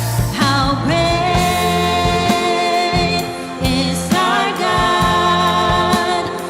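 Live contemporary worship music from a band, with singing held on long notes over a steady low bass and drums.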